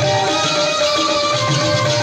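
Live Pothwari folk music in an instrumental passage: sustained melody lines over a steady low drum beat.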